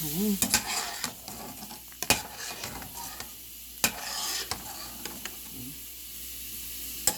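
Food sizzling in a cooking pot while a spoon stirs it, knocking sharply against the pot about four times.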